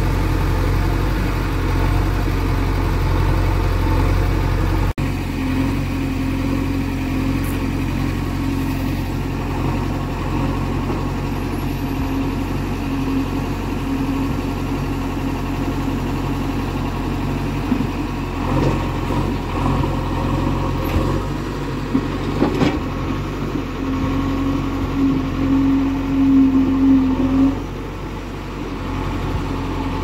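JCB 3DX backhoe loader's diesel engine running steadily, with a higher hum that comes and goes and a few sharp knocks in the second half.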